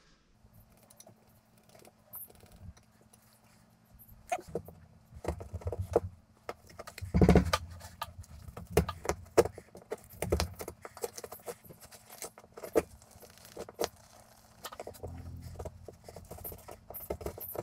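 Scattered clicks, taps and scrapes from handling a metal electrical box against a wall and working at its screw holes, with a louder knock about seven seconds in.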